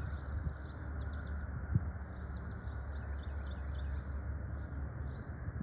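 Small birds chirping repeatedly, with a higher buzzy trill for about two seconds near the middle, over a steady low rumble.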